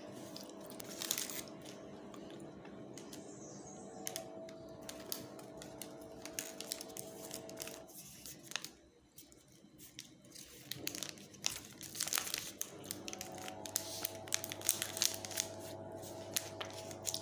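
Chocolate bar wrapper crinkling and rustling in hand: short sharp crackles on and off, with a quieter pause about halfway through.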